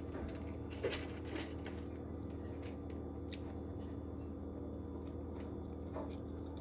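A few light clicks and taps from handling cake and utensils, over a steady low room hum.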